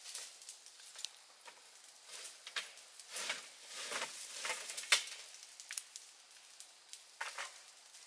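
Dry leaves and twigs rustling and crackling, with scattered sharp snaps and a louder stretch of rustling about three to five seconds in.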